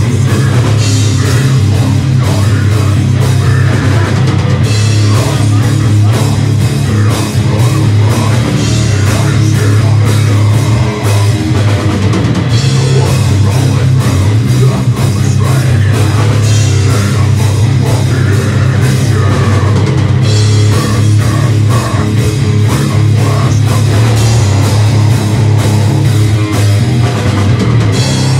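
Live heavy metal band playing loud: distorted electric guitar over a drum kit with crashing cymbals and a heavy, steady low end, the drum and cymbal pattern shifting between sections every several seconds.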